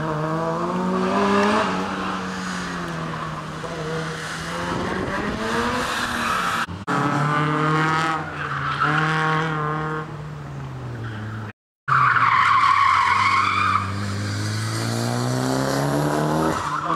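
Cars driven hard through an autocross course: engine notes rising and falling with the throttle and tires squealing through the turns. The sound breaks off abruptly twice, about seven and about twelve seconds in, and the tire squeal is loudest just after the second break.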